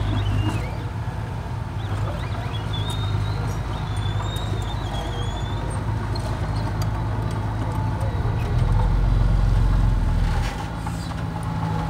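Diesel engine of a Komatsu mini crawler dozer running steadily as it pushes soil, with the engine note growing louder for a couple of seconds around nine seconds in.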